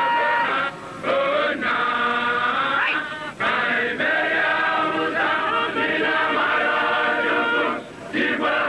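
Group of voices singing an Igbo Biafran chant in short phrases separated by brief pauses.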